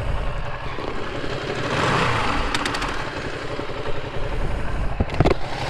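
Ducati Panigale V2's twin-cylinder engine running at low revs as the bike rolls slowly to the kerb and stops. There are a couple of sharp clicks, the loudest about five seconds in.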